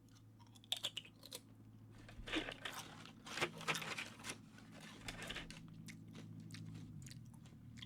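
A person chewing food close to the microphone: faint irregular crunches and mouth clicks. A low steady hum runs underneath and stops about seven seconds in.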